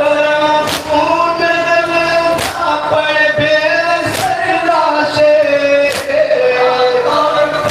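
Men's group chanting a nauha, a Shia mourning lament, in long, drawn-out sung lines, with a sharp unison slap of chest-beating (matam) landing about every second and a half to two seconds.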